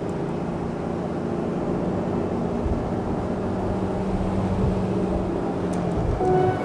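Waterjet-propelled motorboat running at speed: a steady engine hum with the rush of wind and water. The engine note fades out near the end.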